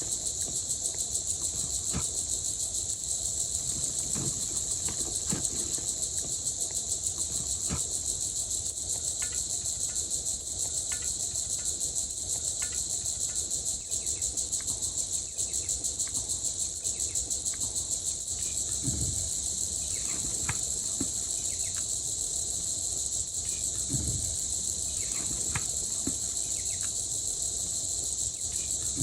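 Dense chorus of crickets or similar insects, a steady high trill with a fast pulse that does not let up. Two dull low thumps come through in the second half, with a few faint clicks scattered throughout.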